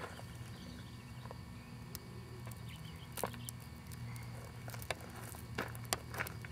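Crushed gravel crunching and small stones clicking under a toddler's hands and feet on a gravel pile: a few scattered clicks at first, coming more often in the second half, over a steady low hum.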